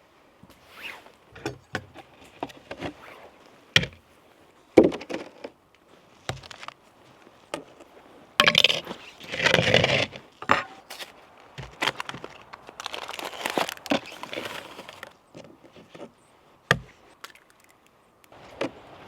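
Hands-on food-preparation sounds while making a muffin mix: a scatter of sharp clicks and knocks, with two longer bursts of scraping and rustling about halfway through.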